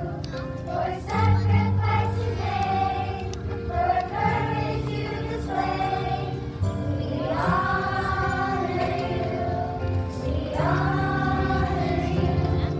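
A choir singing a slow song with instrumental accompaniment: sustained sung phrases over steady low chords.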